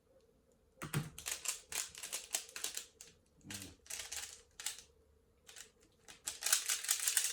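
A 3x3 speedcube being turned fast: rapid plastic clicking and clacking in bursts, with short pauses between groups of turns.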